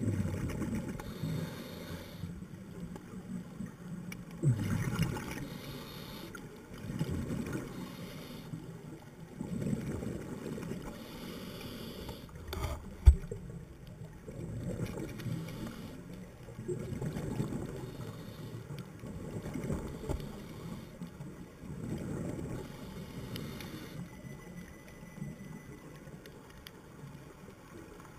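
A scuba diver breathing through a regulator, recorded underwater: a low gurgling rush of exhaled bubbles comes and goes every two to three seconds. A single sharp knock sounds about halfway through.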